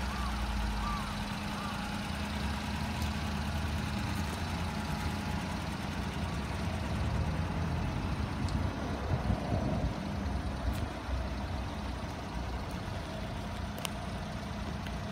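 Small three-cylinder engine of a Daihatsu Hijet kei truck idling steadily, with a brief louder irregular patch about nine seconds in.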